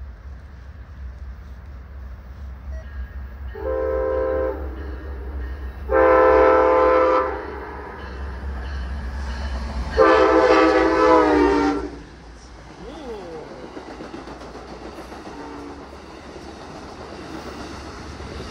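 Locomotive horn on an approaching train sounding three blasts, a short one, a longer one and a last one about two seconds long that falls slightly in pitch as it ends, each a chord of several tones.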